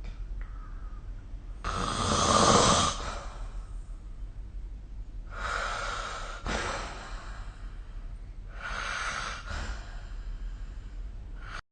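A sleeping person snoring: three breaths about three and a half seconds apart, the first the loudest with a rattling snore, the next two softer and breathier.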